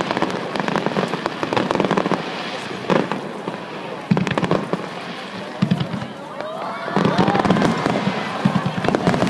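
Aerial fireworks bursting in a dense run of crackles, with several sudden booms.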